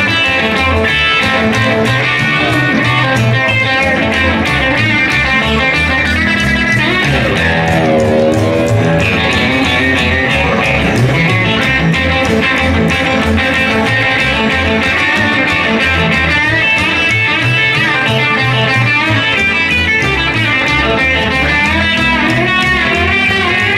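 Live rockabilly band playing an instrumental passage, electric guitar leading over a steady beat, with a wavering, bent note about eight seconds in.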